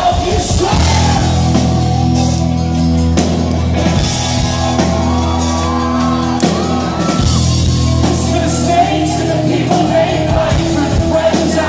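Live rock band playing a song with acoustic guitar, drums and keyboard, with sung vocals and shouts from the crowd.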